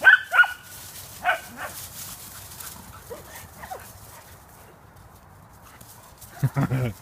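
Dogs yipping and barking during rough play: a few sharp, high yips right at the start and another about a second in, a quieter stretch, then deeper barks near the end.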